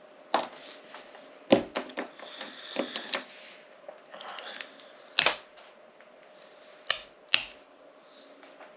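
Sharp, irregular clicks and snaps of hard plastic, with brief scraping between them, as a small screwdriver pries at an old Mazda MX-5 key's plastic chip housing. The immobiliser chip is stuck fast and seems to be glued in.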